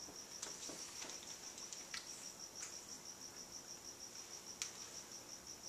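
A cricket chirping faintly and steadily in quick, evenly spaced high pulses, with a few soft clicks.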